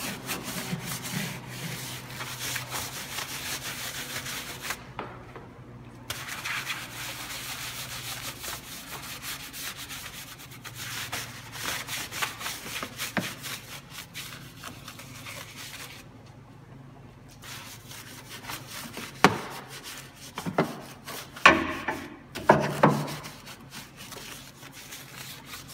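Large detail brush scrubbing a plastic engine cover and firewall trim wet with degreaser foam, in quick back-and-forth scratchy strokes. The scrubbing pauses briefly twice, and a few louder knocks come near the end.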